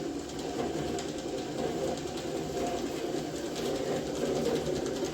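Small 12-volt, 60 RPM permanent-magnet DC gear motors driving the rubber wheels of a remote-controlled spraying robot, running steadily as it turns left.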